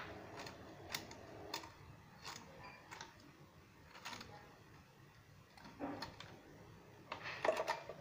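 Irregular light metal clicks and scrapes as a rusted coil spring is twisted off a top-loading washing machine's suspension rod by hand, with a quicker run of clicks near the end as it comes loose.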